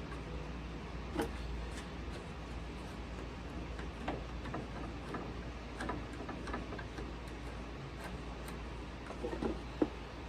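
Plastic or metal scraper spreading glue on plywood: light irregular clicks and scrapes, with a sharper click near the end, over a steady low hum.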